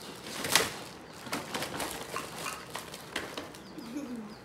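Plastic packaging crinkling and rustling as toy kitchen pieces are unwrapped, with a sharp rustle about half a second in and scattered crinkles after. Near the end, bagged plastic toy parts slide out of a tipped cardboard box.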